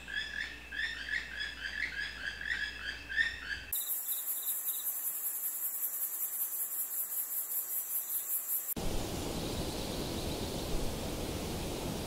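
A small bird chirps in quick repeated notes for the first few seconds. Then a high, fast-pulsing insect trill takes over, and near the end it gives way to a steady rushing noise.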